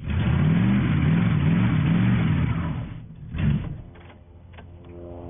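Car engine revved hard in pulses, its pitch rising and falling about twice a second as the accelerator is pumped, while the car sits stuck in deep mud. About three seconds in the revs fall away, one short blip follows, and the engine drops to a quiet idle.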